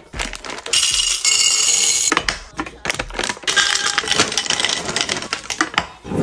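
Gummy candies poured from a plastic bag into a tall glass canister: a rapid patter and clatter against the glass, with the bag rustling, in two long pours.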